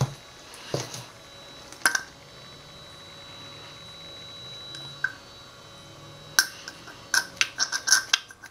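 Utensils and glass containers clinking and tapping as they are handled: a few scattered clinks, then a quick run of about a dozen clinks near the end.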